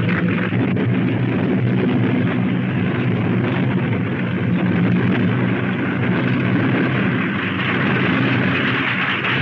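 Steady engine drone of military vehicles, with a low hum and noise under it, on an old newsreel soundtrack. It runs on unbroken across the picture cuts.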